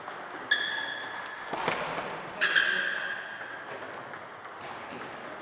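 Table tennis rally: the ball clicks sharply off bats and table, and two of the hits ring on briefly as a high ping.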